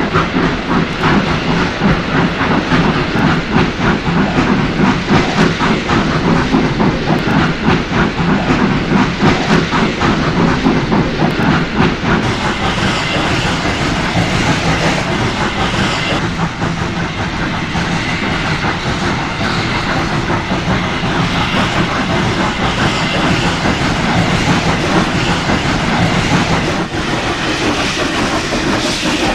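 Steam train running: a rhythmic clatter with hissing, giving way to a steadier hiss about twelve seconds in.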